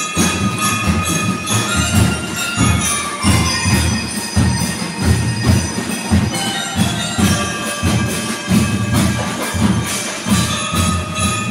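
Drum and lyre corps playing: bell lyres carry a ringing melody over bass and snare drums beating a steady marching rhythm.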